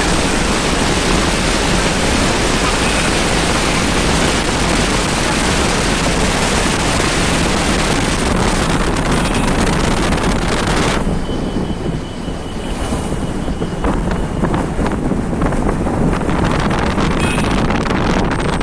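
Wind rushing over the microphone from a moving car, mixed with the car's road noise. About eleven seconds in, the hiss eases and turns duller, and a faint thin high whine runs for a few seconds.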